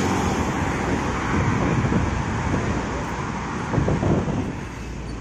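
Steady roadside traffic noise: motorcycles and cars passing close, with a coach bus driving away, easing off a little near the end.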